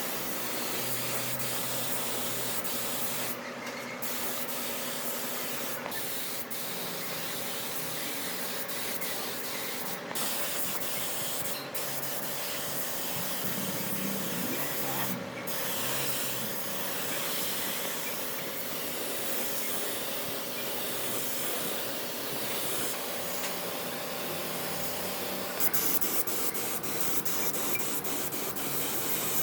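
Wood being sanded: a steady rasping hiss that breaks off briefly a few times.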